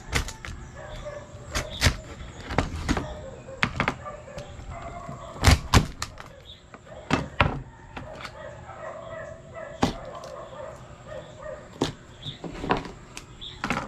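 Heavy cleaver chopping cooked mud crabs on a wooden cutting board: a dozen or more sharp, irregular chops and knocks as the blade cracks through the shells and strikes the board, the loudest a quick double strike about five and a half seconds in.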